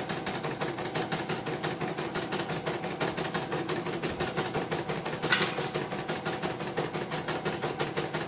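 Computerized embroidery machine stitching steadily, its needle mechanism and hoop carriage clattering at about six to seven stitches a second. A short hiss comes about five seconds in. The machine is being test-run after its burnt power-supply part was repaired.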